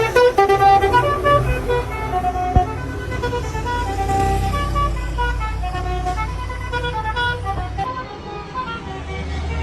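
Truck's Basuri V8 multi-tone musical horn playing a melody of short notes that step from pitch to pitch, over a low engine rumble.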